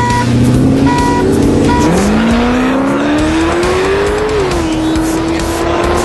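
Modified V8 car under hard acceleration: from about two seconds in the engine note climbs steadily, drops once at a gear shift, then climbs again.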